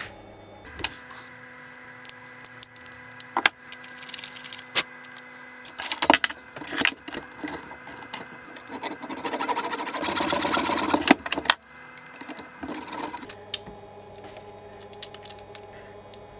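Hand tools and small metal parts being handled and set down on a wooden machine bed: scattered clicks and clacks, with a few seconds of dense, fast rattling a little past the middle. A faint steady hum runs underneath.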